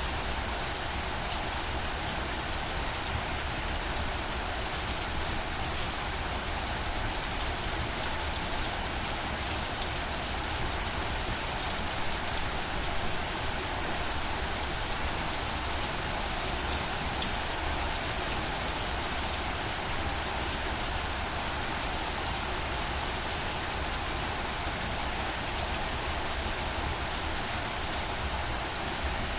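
Steady rain falling on a surface, a dense even hiss with fine drop patter and a low rumble underneath.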